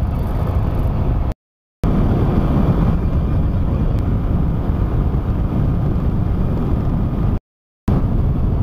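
Wind rushing over the microphone of a motorcycle at highway speed, mixed with engine and road noise, steady throughout. The sound drops out completely twice, for about half a second each time.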